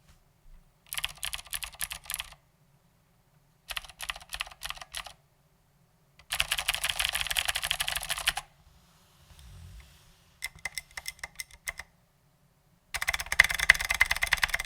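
Ducky Legend mechanical keyboard with clicky Cherry MX Blue switches and SA-profile ABS doubleshot keycaps, typed on in five quick bursts of rapid keystrokes with short pauses between them; the third burst is the longest and densest.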